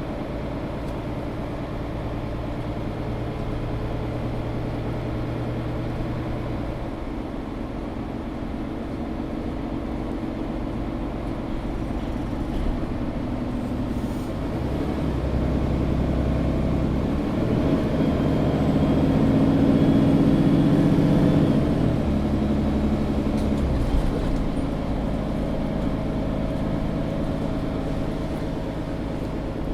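Inside a Mercedes-Benz O530 Citaro G articulated bus under way, its diesel engine and drivetrain running. The engine hum steps in pitch a few times and grows louder toward the middle as the bus pulls harder. About two thirds in it drops back after a shift.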